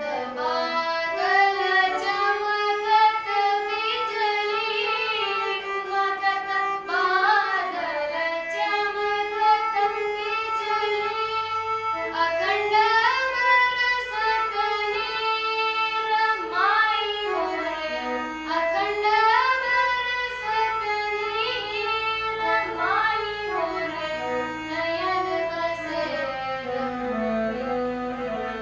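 A girl singing solo, her voice holding notes and sliding and bending between them with many ornaments.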